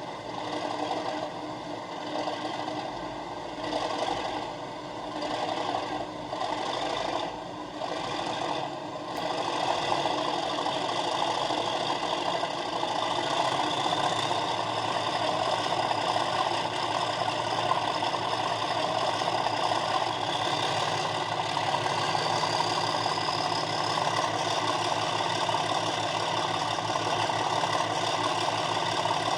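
Model railway DCC sound decoder playing a Class 37 diesel locomotive's English Electric engine through a small speaker: uneven pulsing for the first nine seconds or so, then running steadily, with a faint rising whine twice.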